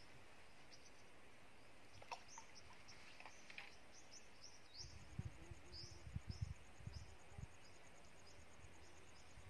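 Faint bird chirps, short high notes repeating every half second or so, over quiet open-air background. A few light clicks come about two to three and a half seconds in, and low rumbling thumps from about five seconds in.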